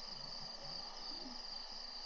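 Night insects trilling steadily on one high, slightly pulsing pitch, with faint low shuffling noises under it.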